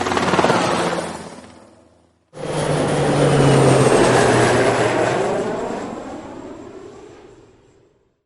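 Two separate sound effects in a row. First a noisy sound with a low steady hum fades away over about two seconds. Then, after a brief silence, a louder rushing sound like a passing vehicle or aircraft starts abruptly and fades out over about five seconds.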